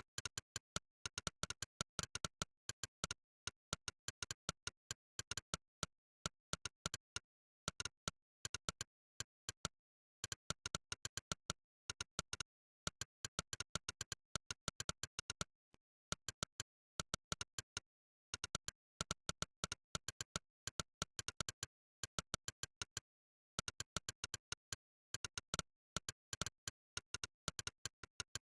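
Monkeytype's "click" typing sound effect: one short synthetic click per keystroke, coming in quick runs of several a second broken by brief pauses between words, with silence in between.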